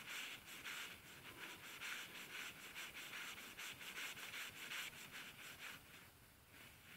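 The shaft of an electric lassi churner's motor being turned back and forth by hand in its freshly cleaned and oiled bush. It makes a rhythmic rubbing about two or three times a second, which stops about six seconds in. Freed of hardened grease, the shaft now turns freely.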